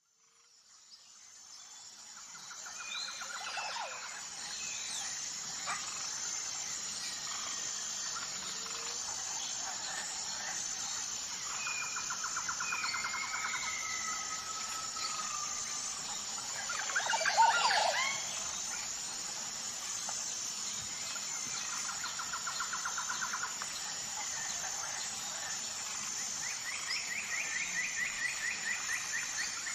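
Wild birds singing: several trilled phrases and chirps over a steady background hiss, with one louder call about 17 seconds in. The sound fades in over the first few seconds.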